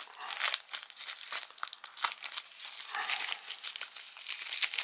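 Clear plastic zip-lock bag crinkling as hands handle it and pull it open, a continuous run of irregular sharp crackles and rustles.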